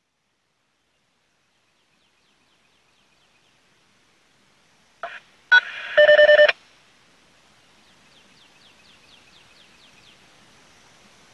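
Electronic intro sound effect for an animated logo: a couple of short blips about five seconds in, then a loud half-second run of rapid pitched beeps like phone dialing tones about six seconds in. Faint repeated chirps follow.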